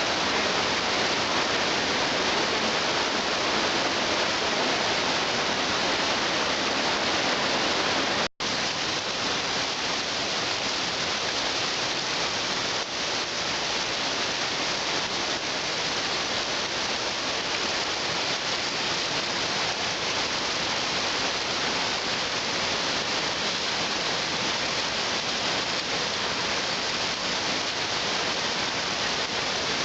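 Waterfall rushing: a steady, dense roar of falling water, broken by a split-second gap about eight seconds in.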